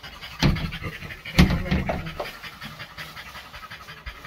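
French bulldog panting rapidly and steadily, worn out after a walk, with two louder sudden sounds about half a second and a second and a half in.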